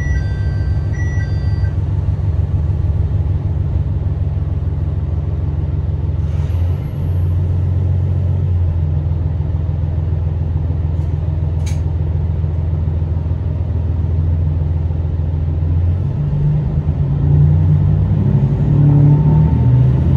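Diesel engine of a Tosa Kuroshio Railway 9640-series railcar idling steadily, heard from inside the passenger cabin. In the last few seconds it revs up with a rising note as the railcar pulls away. A few short electronic beeps sound right at the start.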